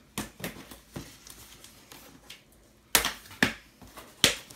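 A cardboard Priority Mail box being opened by hand: a few light clicks and rustles, then three sharp snaps in the last second and a half as the flaps are pried apart.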